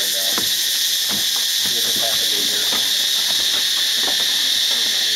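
Loud, steady, high-pitched drone of a forest insect chorus, with people talking faintly beneath it.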